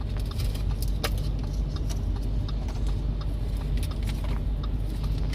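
Light plastic clicks and small rattles of car-radio cable connectors being handled, with one sharper click about a second in, over a steady low hum.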